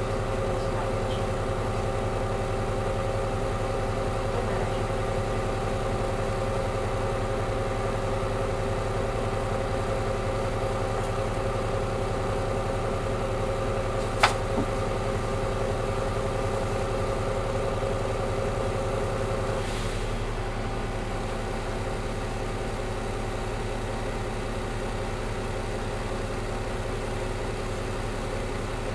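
Solaris Urbino 8.9LE city bus idling at a standstill: a steady engine hum with several held tones. A single sharp click comes about halfway through. About two-thirds of the way in, one of the tones cuts out and the hum gets a little quieter.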